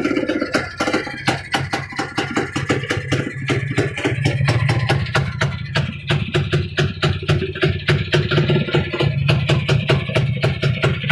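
Restored 1966 Jawa two-stroke motorcycle engine idling, with a rapid, even popping over a steady low hum.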